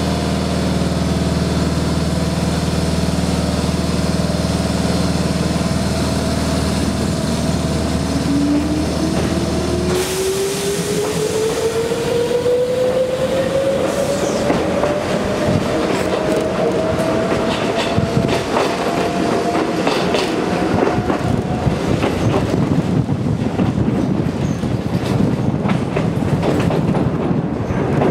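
Konan Railway Owani Line electric train pulling away and picking up speed: a steady low hum, then from about eight seconds in a traction-motor whine that rises steadily in pitch for some twelve seconds. As the train gathers speed, the wheels clatter more and more over the rail joints.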